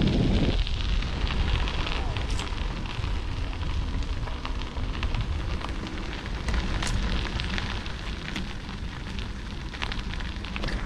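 Bicycle tyres rolling over a gravel trail, heard through a GoPro: a steady low rumble of wind and vibration on the microphone with scattered crackles from the stones. A heavier gust of wind rumble dies away about half a second in.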